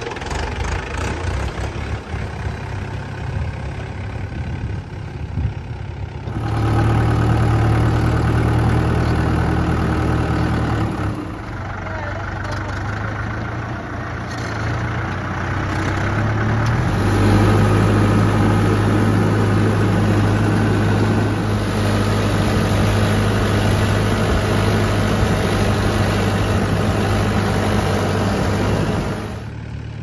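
Swaraj 843 XM tractor's three-cylinder diesel engine running steadily, in several cuts. It gets louder about six seconds in, eases off for a few seconds just before the middle, and runs louder again through the second half.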